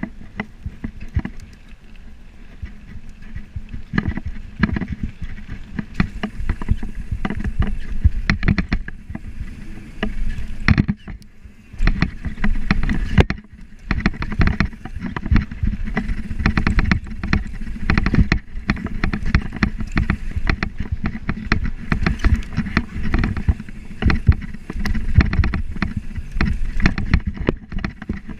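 Downhill mountain bike riding fast over a dirt and gravel trail: a steady rumble of tyres on the ground and wind on the microphone, with constant rattling and knocking from the bike as it hits bumps.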